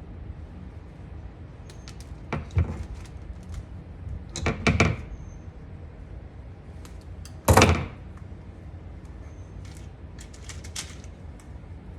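A run of light clicks and knocks over a steady low hum, with a louder cluster of knocks about four and a half seconds in and the heaviest knock about seven and a half seconds in.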